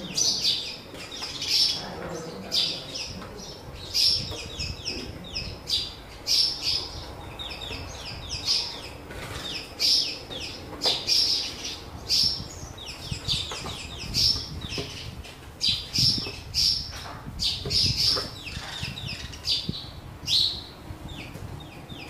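House sparrows chirping over and over, the sharp chirps often coming in quick clusters about once a second.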